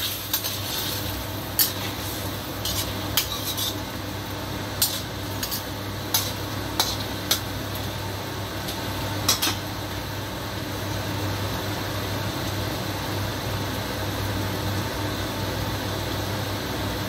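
Metal ladle stirring chicken wings and potatoes in a steel wok, clinking and scraping against the pan a dozen or so times in the first nine seconds or so, over the steady hiss of the simmering sauce and a constant low hum.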